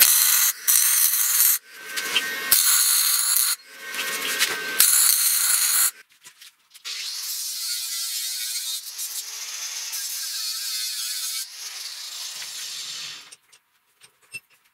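MIG welding on a steel tube, the arc crackling in several short bursts with brief pauses, then an angle grinder grinding steel steadily for about six seconds before stopping near the end.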